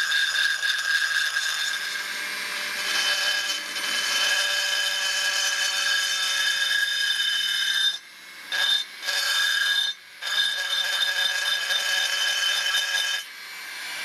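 Foredom flex-shaft rotary tool spinning a carbide burr, cutting into an aluminium two-stroke engine case: a steady high-pitched whine with a scraping grind. It drops out briefly twice, about eight and ten seconds in.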